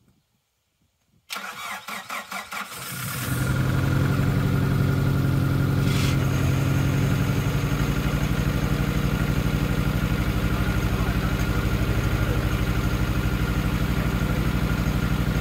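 Nissan Pulsar GTiR's SR20DET turbocharged four-cylinder engine being started. The starter cranks it for about a second and a half beginning about a second in, then the engine catches and settles into a steady idle.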